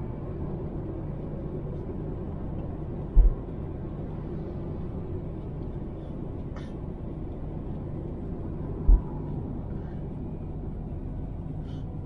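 Steady low rumble of car road noise heard from inside the cabin while driving. Two brief low thumps stand out, about three seconds in and again near nine seconds.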